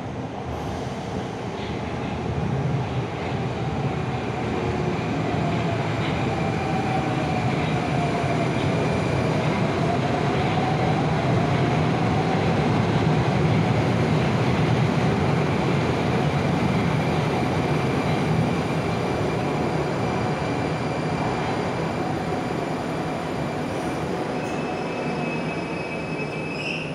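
Moscow Metro 81-760 "Oka" train pulling into the station and stopping: a heavy rumble of wheels on rail builds to a peak about halfway and then eases off, with a wavering whine in the middle. A thin high squeal comes in as it slows to a halt near the end.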